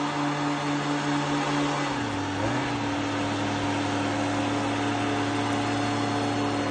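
A pair of Stihl leaf blowers ducted through drain pipe, running steadily as they push a paddle boat across the water: a continuous rushing blast over an engine hum whose pitch drops slightly about two seconds in.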